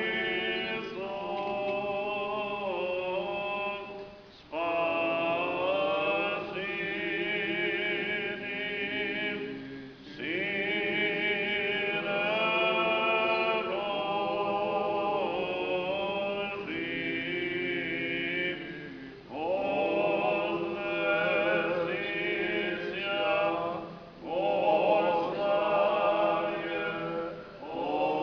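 Church choir singing Orthodox liturgical chant a cappella, in long sung phrases with held notes and short breaths between them.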